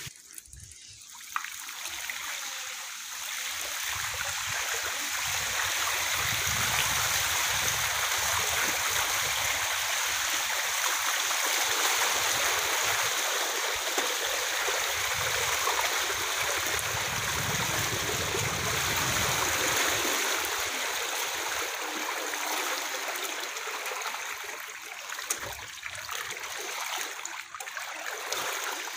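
Bicycle front wheel pushing through shallow floodwater, a steady rushing splash of water. It grows louder a few seconds in and eases off after about twenty seconds.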